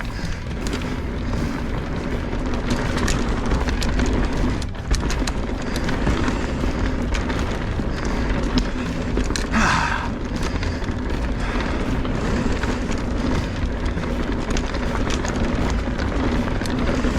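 Full-suspension mountain bike descending a fast dirt trail: steady wind rush and tyre roar on the camera microphone, with many quick clicks and knocks from chain and frame over rough ground. A brief louder scraping hiss comes about ten seconds in.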